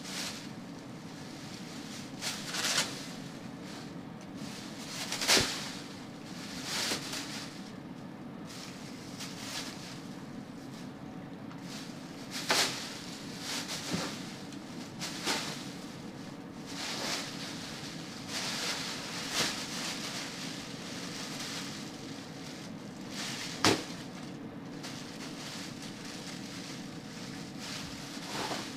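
Thin plastic garbage bag crinkling and rustling in short, irregular bursts as a pet monkey tugs and tears at it.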